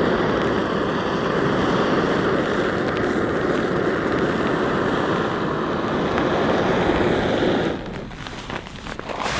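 Heavy rain drumming steadily on a tarp overhead. About eight seconds in it drops away abruptly, leaving lighter, scattered drips.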